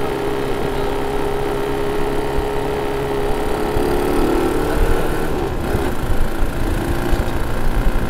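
ATV quad bike engine running as the bike rides along the beach, with wind buffeting the microphone. The engine's steady note wavers and rises about four seconds in, then sinks under a growing low wind rumble.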